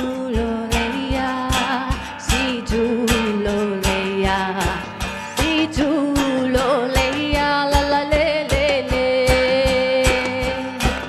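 Live music: a voice singing a wavering melody over guitar, with a steady low drum beat a little over two per second.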